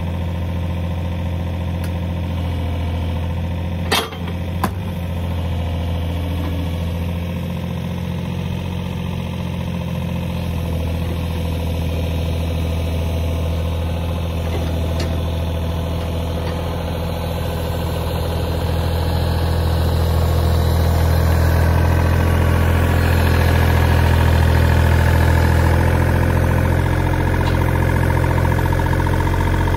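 John Deere mini excavator's diesel engine running steadily while its hydraulic arm works a wooden fence post. There are two sharp knocks about four seconds in. The engine gets louder in the second half, with a rising whine.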